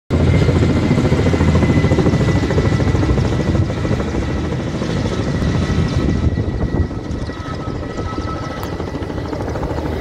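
Kamov coaxial-rotor helicopter flying past, its rotors beating under a steady high turbine whine, the sound slowly fading as it moves away.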